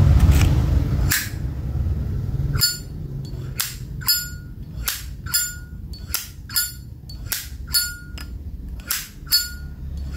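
A 1985 gold-plated Zippo lighter's hinged lid flicked open and snapped shut again and again, each snap a sharp metallic click with a brief ringing ping. There is a low rumble for the first couple of seconds before the clicking starts.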